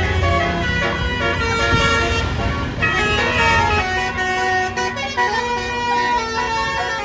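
A bus's melodic 'basuri' telolet air horn playing a tune, several tones sounding together and stepping from note to note. Under it a deep bus engine rumble fades out about half a second in.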